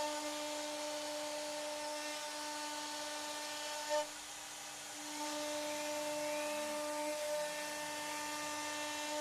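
CNC router spindle running with a steady high-pitched whine over cutting hiss; the whine thins out for about a second midway, then returns.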